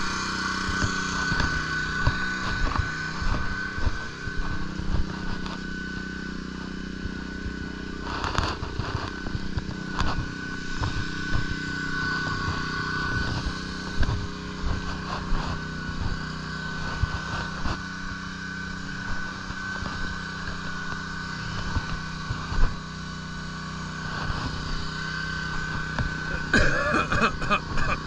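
Small petrol engine of a pressure washer running steadily, with a steady high whine over it and a few bumps.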